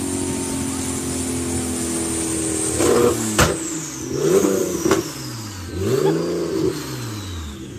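Performance car engine running steadily. About three seconds in comes a sharp exhaust bang, followed by two quick revs that rise and fall, with cracks from the exhaust. A high whine falls slowly in pitch throughout.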